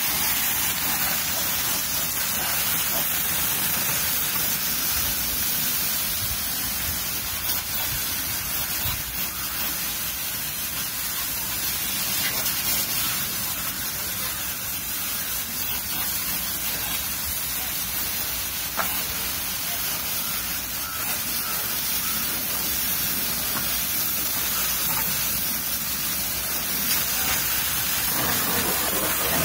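Jet of water from a hose nozzle spraying onto a car's windows and body panels, rinsing off soap foam: a steady hiss of spray with water spattering off the metal and glass.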